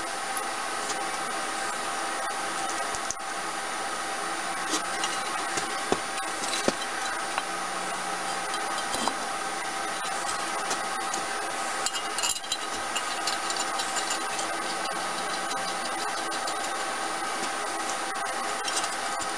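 A steady machine hum throughout, with scattered light clinks, knocks and rubbing of metal parts being handled as a gasket and cast-iron exhaust manifold are fitted onto an engine head. The knocks cluster twice, around a third of the way in and again past the middle.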